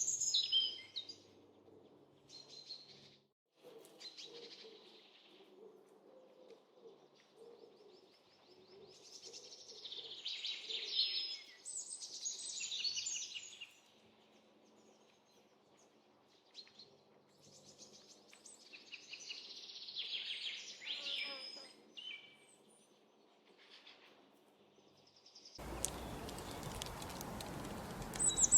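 Songbirds chirping and singing in short bursts of rapid chirps and trills, with quiet gaps between. Near the end a steady hiss cuts in suddenly under the calls.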